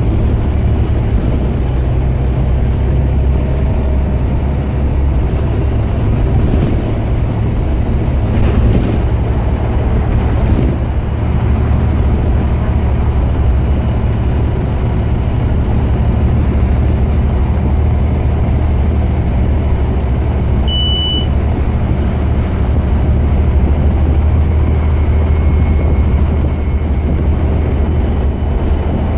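Scania OmniCity single-deck bus's rear-mounted diesel engine running, heard from inside the passenger saloon as a steady low drone with road noise. A short high beep sounds once about two-thirds of the way through.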